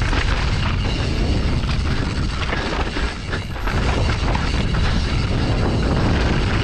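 Mountain bike ridden fast down a rough dirt enduro trail, heard from a bike-mounted action camera: wind buffeting the microphone, tyres on dirt and roots, and the chain and frame rattling over bumps. The noise drops briefly a little past the middle.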